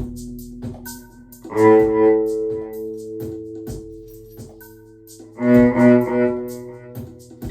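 Instrumental music: long held low chords, with new chords coming in about one and a half seconds in and again near the end, over a steady light ticking beat.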